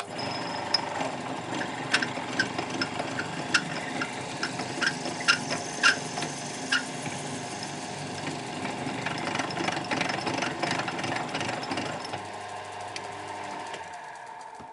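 Wood lathe motor running steadily while a tool works the spinning wooden blank to cut a hole to depth, with sharp clicks and knocks for a few seconds early in the cut. The motor hum fades out near the end as the lathe is switched off and spins down.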